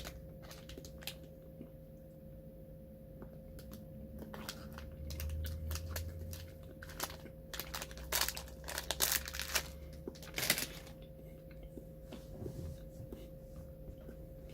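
Scattered crinkling and crackling noises close to the microphone while a mini chocolate lollipop is handled and eaten, thickest a little past the middle, over a faint steady electrical hum.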